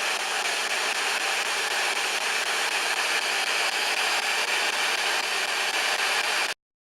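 Ghost box radio static: a steady, even hiss that cuts off suddenly near the end.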